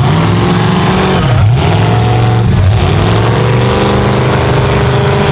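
Full-size pickup truck engines revving hard as the trucks race on a dirt track. Their pitch drops and climbs again about three times, with several engines overlapping.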